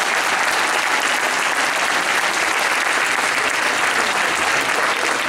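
Audience applauding: dense, steady clapping from a full hall at the end of a choir song.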